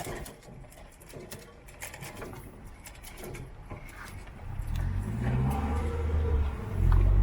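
Diesel train engine throttling up as the train pulls away: a low engine note comes in about halfway through and grows louder, rising briefly in pitch.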